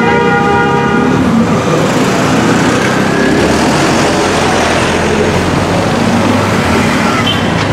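Road traffic: a vehicle horn sounds and stops about a second in, then the steady noise of passing vehicles' engines and tyres.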